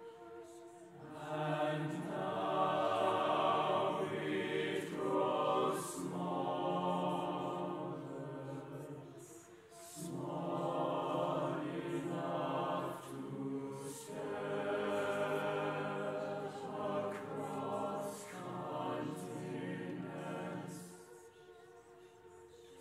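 Mixed choir singing a cappella, with no instrument heard. Voices enter about a second in, break off briefly about ten seconds in, and drop to a soft held chord near the end.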